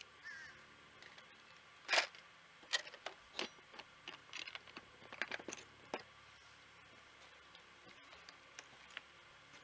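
A string of irregular sharp clicks and taps over a quiet background, the loudest about two seconds in, thinning out after about six seconds with a couple of faint ticks near the end.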